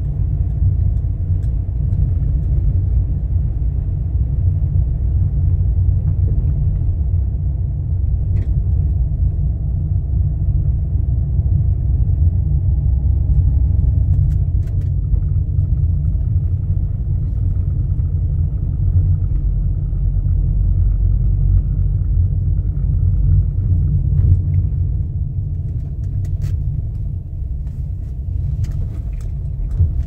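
Steady low rumble of a car driving slowly along a paved street, heard from inside the cabin, with a few faint clicks near the end.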